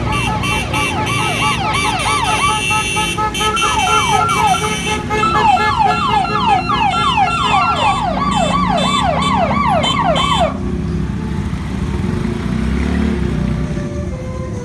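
Electronic siren yelping in fast repeating sweeps of pitch, about three a second, changing pattern twice before cutting off suddenly about ten seconds in. Small motorcycle and tricycle engines run underneath.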